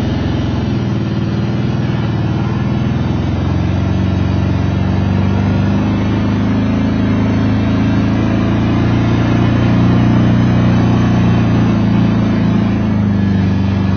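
Four-wheeler (ATV) engine running as it rides along a dirt trail, a steady drone that rises slightly in pitch partway through.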